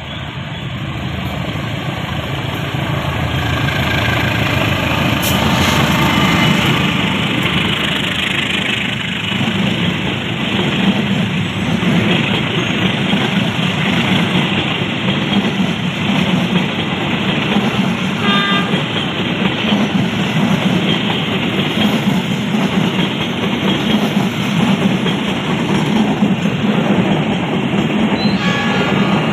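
A diesel-hauled passenger train passing close by: locomotive engine and wheel noise building over the first few seconds into a steady rumble and clatter of coaches rolling over the rails. A short horn toot sounds about two-thirds of the way through and another near the end.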